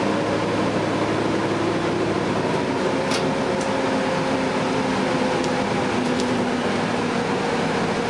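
Cabin noise of a 2011 Gillig Advantage bus under way, its Cummins ISL9 diesel and Allison B400R transmission giving a steady drone with a whine that sets in about three seconds in and slowly falls in pitch. A couple of faint ticks sound from the cabin.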